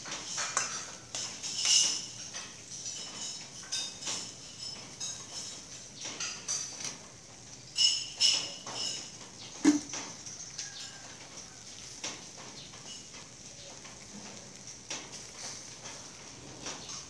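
Pork ribs sizzling on a wire grill grate over charcoal, with metal tongs clicking and scraping against the grate as meat is laid on. The clicks come thickest in the first ten seconds, then the sizzling goes on more quietly.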